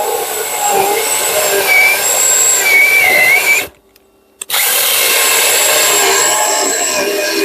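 Parkside PGHSA 20 LI 20 V cordless mini chainsaw running and cutting through wood, with a whining motor and chain. It stops suddenly a little past halfway, then starts again under a second later.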